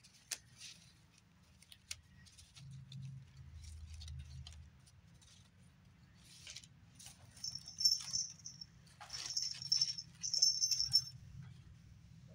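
Light clicking and clacking of a stack of small ornate frame embellishments being shuffled by hand, with repeated short high-pitched whines in the second half that are the loudest sounds.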